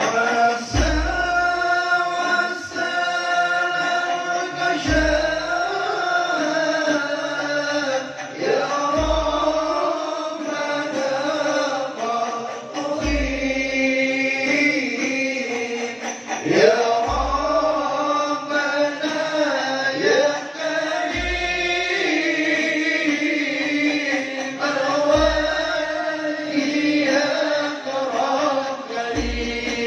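Men's voices singing a slow Islamic devotional chant through a loudspeaker system, the melody gliding and held on long notes, with a deep drum stroke about every four seconds.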